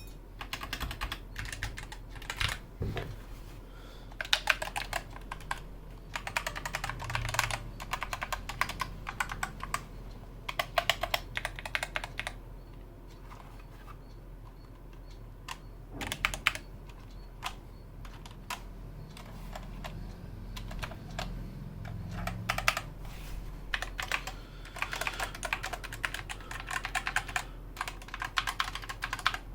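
Typing on a Skyloong SK61 60% mechanical keyboard with Gateron optical switches and double-shot ABS keycaps: runs of rapid key clicks broken by pauses. The typing is densest over the first twelve seconds and again near the end.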